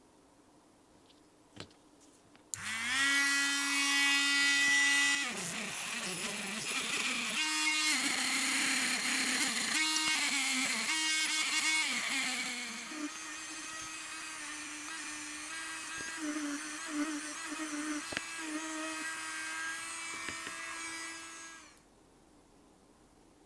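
Electric power tool motor starting with a quick rising whine, then working against material: its pitch sags and wavers under load for several seconds with a harsh grinding noise over it, then runs steadier with lighter contact before stopping suddenly near the end. A single click comes just before it starts.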